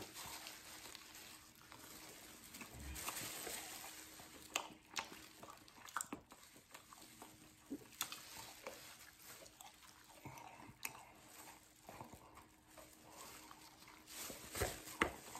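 A man biting into and chewing a buffalo chicken wing: faint wet chewing with scattered small clicks and crackles.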